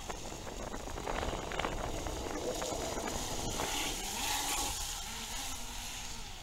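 RC model jet ski running at speed across the water, its motor and the rush of its wake getting louder as it passes close about four seconds in, then dropping away as it heads off.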